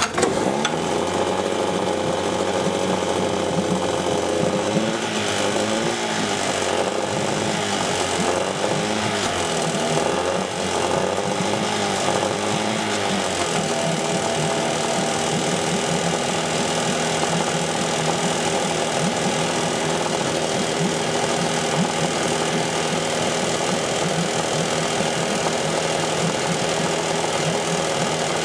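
Suzuki 9.9 hp two-stroke outboard motor catching on a pull of the starter cord and running. Its speed wanders up and down for about the first dozen seconds, then settles into a steady idle.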